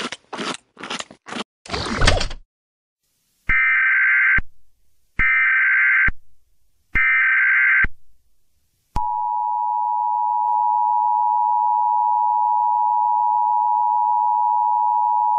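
Emergency Alert System broadcast signal: three buzzing data-header bursts of about a second each, then the steady two-tone attention alarm starting about nine seconds in. A quick run of short crackly bursts comes first.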